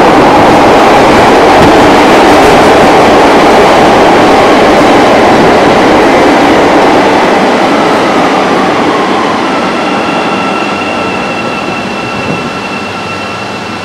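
Eight-car CTA Bombardier 5000-series subway train running in along the platform, a loud rumble of wheels on rail that gradually dies down as the train brakes. A steady two-pitched whine comes in about two-thirds of the way through as it slows.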